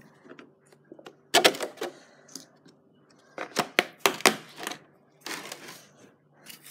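Rapid clicking and knocking of kitchen things being handled on a wooden table: jars, a fork and a dish, in several short bursts.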